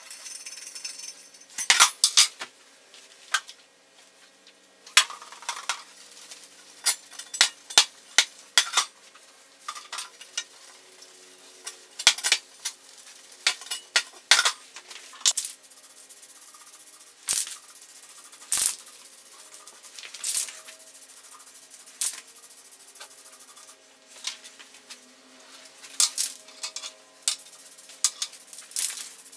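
Thin sheet-metal cone and its steel bracket clanking and clicking against a board as they are handled, wiped down and set in place: irregular sharp metallic knocks.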